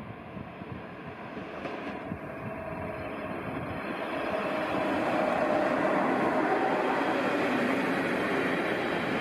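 NS SGM Sprinter electric multiple unit approaching and running past close by, the sound of its wheels on the rails and its running gear growing steadily louder over the first five seconds and then holding at its loudest as the coaches pass.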